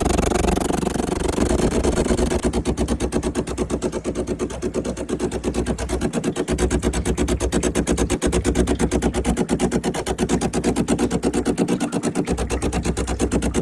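DeLonghi ESAM3300 espresso machine's vibratory water pump running and pushing water through the freshly re-sealed hose coupler. It is a loud, steady noise that turns into a rapid, even pulsing about two seconds in.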